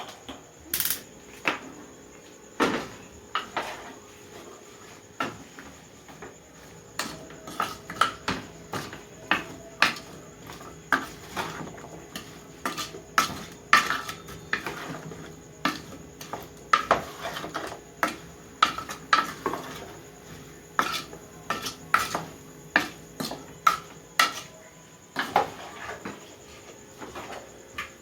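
A spoon clinking and scraping against a pot as vegetables are stirred, with many irregular sharp knocks, a few each second.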